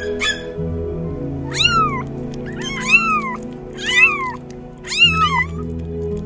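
Kitten meowing four times, each meow rising and then falling in pitch, over steady background music.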